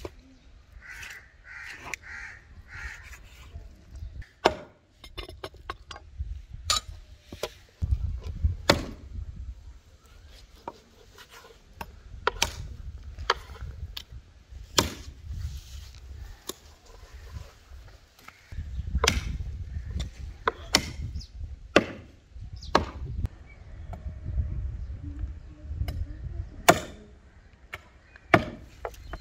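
Knives chopping goat meat on a wooden stump block and cutting board: irregular sharp knocks of blade through meat into wood, one every half second to a second or so.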